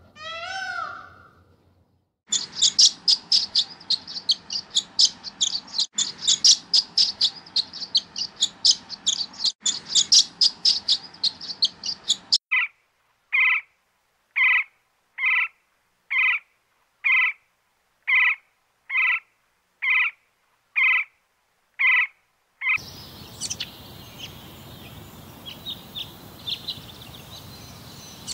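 Birds calling in succession: a rapid high twittering song for about ten seconds, then a short two-pitched call repeated about once a second for ten seconds, then faint chirps over steady outdoor background noise.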